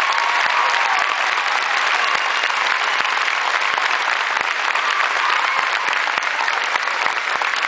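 Large crowd applauding steadily, with a few voices cheering in the first second.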